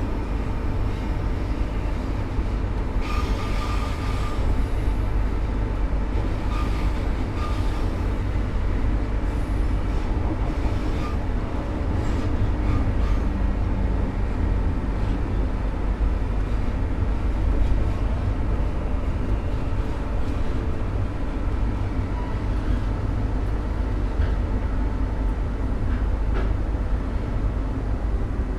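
A train running, a steady heavy low rumble with a few short high wheel squeals a few seconds in.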